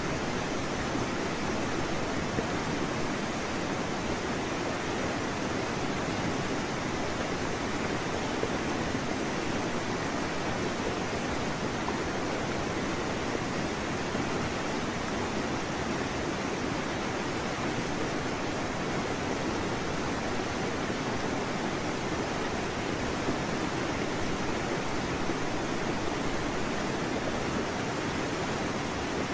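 Steady, unchanging rushing hiss with no separate events.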